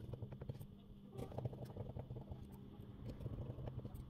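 Faint, scattered small clicks and taps of fingers handling small parts and screws on a smartphone's frame during reassembly, over a steady low hum.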